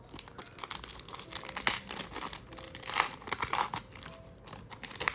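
Crinkling and tearing of a trading-card pack's foil wrapper as it is handled and opened, in a run of irregular crackles.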